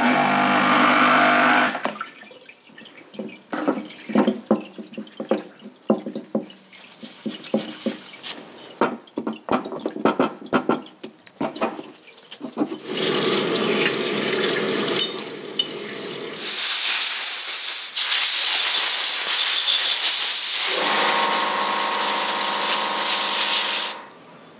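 Solvent parts washer in use: a brush scrubbing grime off a motorcycle brake master cylinder and lever, with many small clicks and scrapes of parts and brush against the plastic tub, and solvent running from the washer nozzle. A long loud hiss takes over for the last several seconds.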